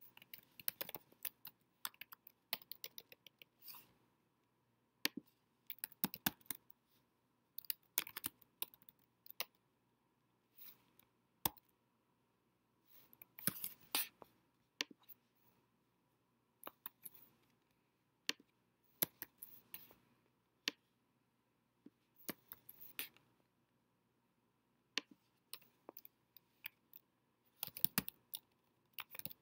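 Typing on a computer keyboard: quick runs of keystrokes in short bursts with pauses between them.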